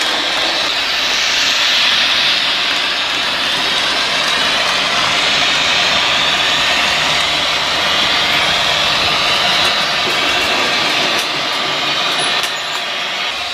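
Märklin model trains running on the layout's track: a steady, loud whirring rush of small motors and metal wheels rolling on rails, easing slightly near the end.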